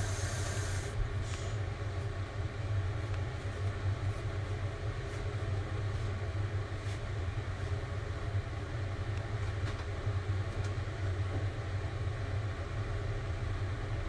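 Gas stove burner running under an aluminium saucepan of simmering broth: a steady low rumble, with a few faint ticks.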